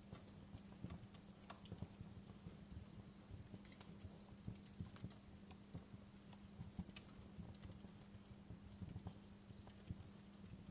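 Wood fire crackling: a faint, irregular stream of small snaps and pops, a few of them sharper and louder, over a steady low hum.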